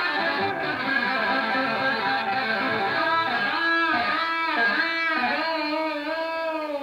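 Electric guitar solo played live: a fast run of notes, then from about three seconds in a phrase of repeated string bends rising and falling in pitch, settling onto a held note at the end.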